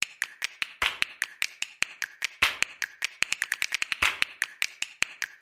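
A rapid, uneven series of sharp clicks, about five a second, that stops suddenly.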